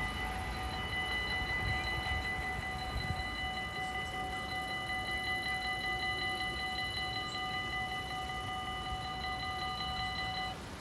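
Railway level-crossing warning bell ringing rapidly and steadily while the half-barriers rise after the train has passed, then cutting off near the end once the barriers are up.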